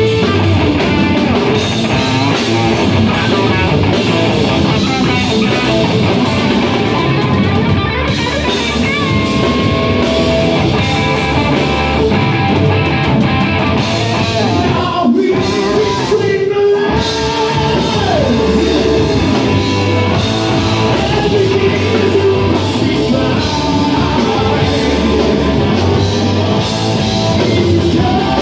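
Live rock band playing loud: distorted electric guitar through a Marshall amp over drums and bass, with a singer's voice. The band cuts out briefly about halfway through, then comes back in.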